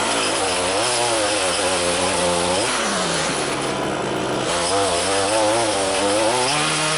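Small two-stroke engine of a handheld Echo lawn tool running under load, its pitch rising and falling repeatedly as the throttle is worked.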